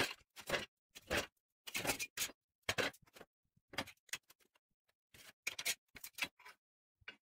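Short scrapes and rubs, about one or two a second, as a tape measure and a metal square are handled against a square steel tube on a steel workbench.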